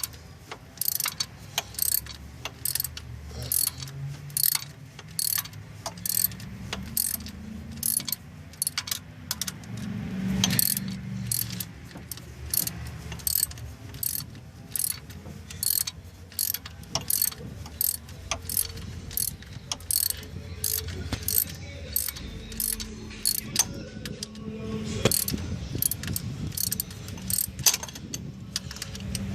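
Ratchet wrench clicking in a steady rhythm, about one to two strokes a second, as a tight bolt on a car's power steering pump is worked loose.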